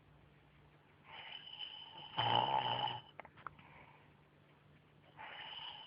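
A sleeping man snoring: a breath builds about a second in into one loud snore with a low buzz that stops at about three seconds, and the next snoring breath begins near the end.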